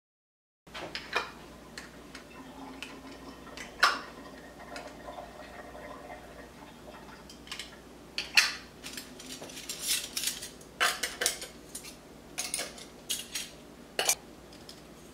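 Metal canning lids and screw-on rings clinking and clicking against each other as they are handled, a run of small, irregular clinks that grows busier in the second half. It starts after a brief moment of dead silence.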